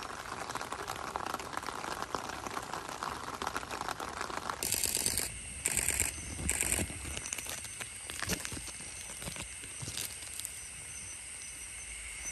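Outdoor noise, like wind on the microphone, for the first few seconds. Then, from about five seconds in, a steady high-pitched trilling of night insects, with three short rustling bursts soon after the change.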